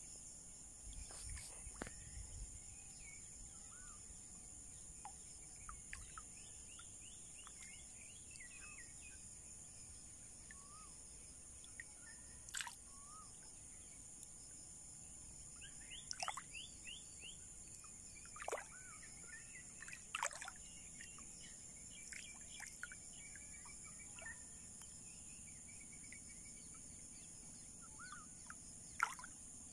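Quiet outdoor ambience: scattered bird chirps and several sharp downward-sweeping bird calls over a steady high-pitched insect drone.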